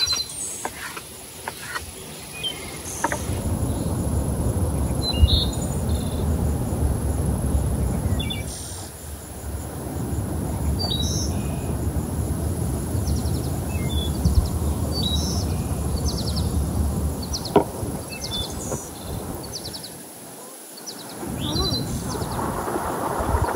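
Outdoor ambience: birds chirping and trilling in short calls throughout, over a thin steady high insect drone. A low rumble of wind on the microphone rises about three seconds in and drops away twice.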